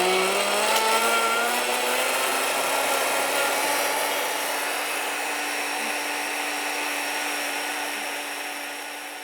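HealthMaster blender's motor speeding up to its top speed, its whine rising over the first couple of seconds, then running steadily as it blends a pitcher of vegetables, gradually getting quieter near the end.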